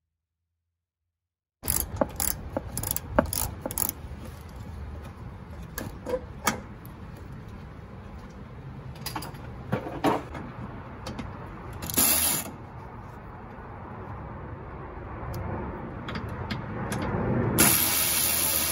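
Hand socket ratchet clicking in short, irregular runs as a bolt is worked loose. Near the end a louder, steady sound takes over: music with guitar.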